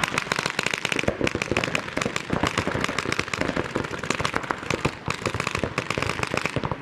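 Paintball markers firing rapid strings of shots: a dense, uneven run of sharp pops, many each second, as several guns go at once.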